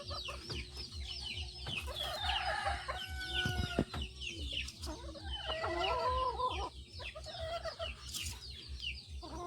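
A flock of free-range native chickens: many chicks peeping with quick, high falling peeps, over hens clucking lower down.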